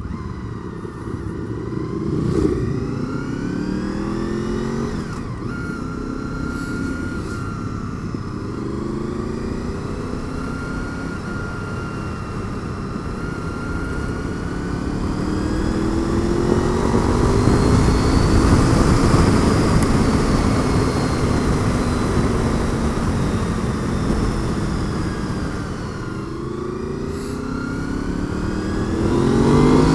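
Honda VFR800 V4 engine running under way, its revs rising in repeated sweeps and dropping back at each gear change, with a long steady pull in the middle. Wind rushes over the helmet-mounted microphone, loudest as speed builds.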